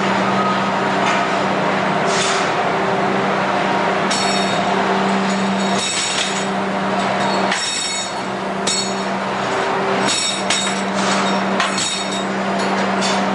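Steady hum and roar of a heat-treat line's conveyor machinery, with about ten irregular, ringing metallic clinks of hardened steel plier parts striking one another as they come off the line.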